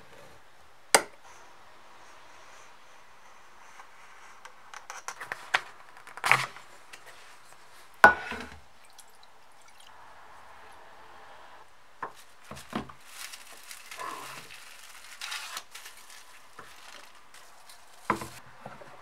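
Hands working thick cowhide leather: a knife drawn along a metal ruler, then soaked leather squishing and dripping as it is handled wet. Several sharp knocks of tools and objects set down on the work surface break in, the loudest about eight seconds in.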